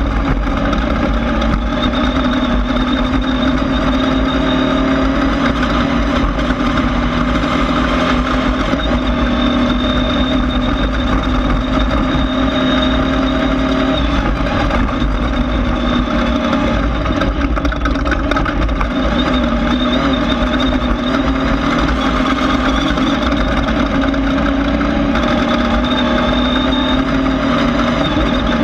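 Class 1600 off-road race car's air-cooled Volkswagen 1600 flat-four running hard. It makes a steady, loud engine drone over a heavy rumble, and the engine note steps slightly up and down every few seconds.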